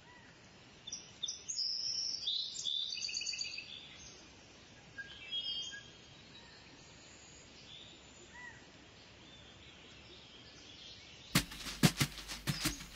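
Small birds chirping over a faint steady hiss, with a cluster of calls between about one and four seconds in and a few scattered calls later. Near the end a quick, irregular series of sharp taps starts.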